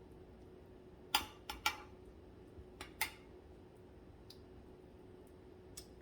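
A utensil clinking against a casserole dish a few times, short sharp clicks in the first half, while egg-soaked bread is pressed down in the dish. A faint steady hum runs underneath.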